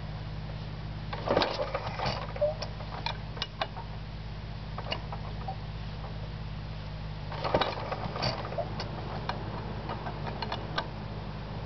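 1938 Fairbanks Morse ZD 1.5 hp engine being turned over by hand at its flywheel crank during a stubborn start. Two bursts of mechanical clicking and clattering come about a second in and again about seven seconds in, with scattered ticks between, over a steady low hum.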